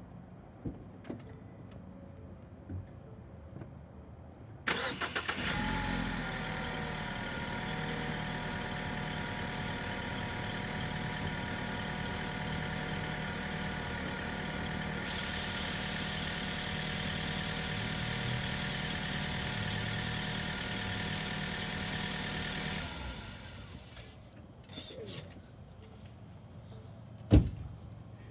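Car engine starting about five seconds in and idling steadily for about eighteen seconds, then shutting off. A single loud thump comes near the end.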